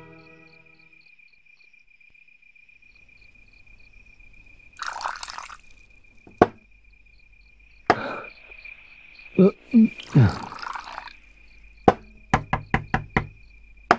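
Wine poured from a jug into a cup twice, with sharp knocks and clinks of the cup and jug being set down on a table, and a run of five quick knocks near the end. Crickets chirp steadily behind.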